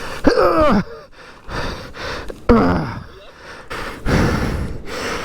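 A man's strained gasps and groans, two short falling cries, about half a second in and again about two and a half seconds in, as he struggles with a fallen motorcycle. Hiss runs in between, like wind and rustling on the microphone.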